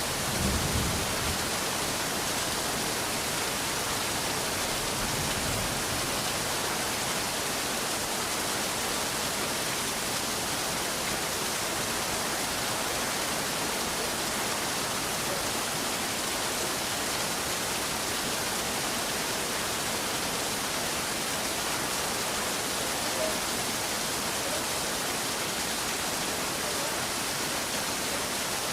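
Steady rain falling, an even hiss, with the last of a low thunder rumble dying away about a second in.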